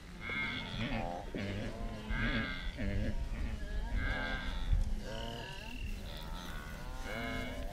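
Herd of wildebeest calling: many short calls overlap one after another over a low rumble.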